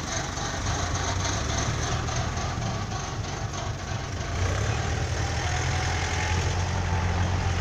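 Heavy vehicle's diesel engine running under load as the machine pushes through mud. The engine grows louder and stronger about four and a half seconds in.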